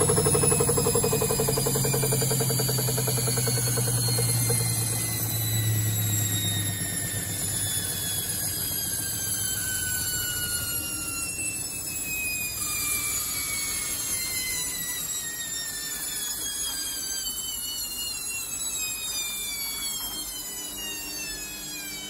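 Baumatic washer-dryer's drive motor and drum spinning down after the spin that follows the main-wash drain. A high motor whine with several tones falls slowly in pitch and fades throughout, and a low hum dies away about five to seven seconds in.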